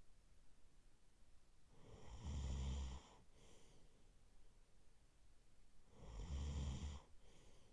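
A man snoring in his sleep: two deep snores about four seconds apart, each about a second long, each followed by a fainter breath.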